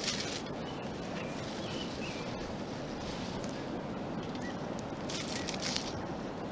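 Aluminium foil crinkling under hands as trout are laid on it, in short bursts at the start and again about five seconds in, over a steady outdoor background hiss with a few faint bird chirps.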